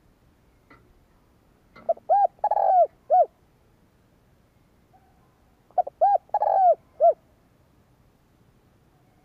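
Spotted dove cooing: two identical calls about four seconds apart. Each is a short lead-in note, two quick arched coos, a longer rolling coo and a final coo.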